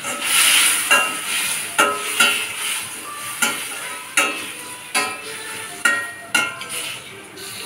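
Metal slotted spatula scraping and clanking against a stainless steel wok while stir-frying prawns, about a dozen strikes with a short metallic ring, every half second to second. Frying prawns sizzle underneath, loudest in the first second.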